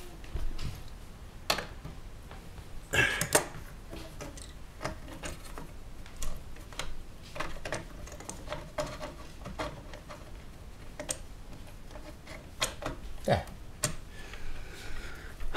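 Irregular small clicks, taps and knocks as a metal lead screw and 3D-printed plastic parts are handled and fitted into a 3D printer's frame, with a couple of louder knocks about 3 and 13 seconds in.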